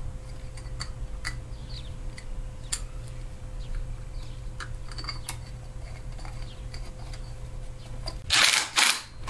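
Scattered light clicks and ticks of small engine parts being handled and fitted by hand, over a steady low hum, with a louder scraping rasp twice near the end.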